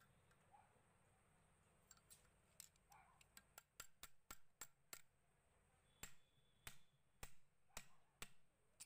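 Steel tool tapping the end cover of a small domestic water pump motor to seat it on the motor body during reassembly: faint, sharp taps, a quick run of them about four seconds in, then slower taps about every half second.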